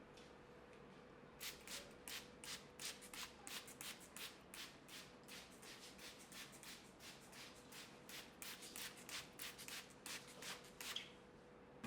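Quick repeated scraping or rubbing strokes, about three a second, starting about a second and a half in and stopping near the end, over a faint steady hum.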